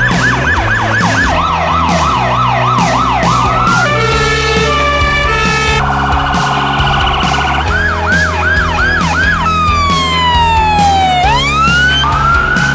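A string of emergency-vehicle sirens cut one after another over background music with a steady beat. First come fast yelp sirens, then a two-tone siren about four seconds in and a quicker warble. More yelps follow, and near the end a long falling-then-rising sweep.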